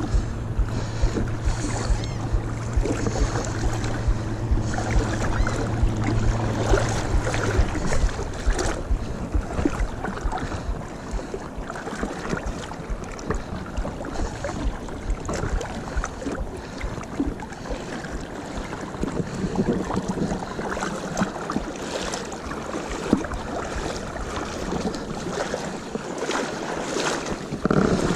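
Shallow seawater lapping and splashing close to a camera held just above the surface, with wind on the microphone. A steady low hum runs under the first eight seconds and stops abruptly.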